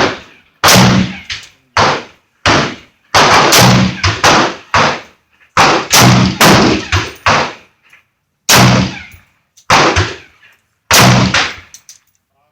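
AR-15 rifle fired one shot at a time, about a dozen irregularly spaced loud shots, each with a short ringing echo.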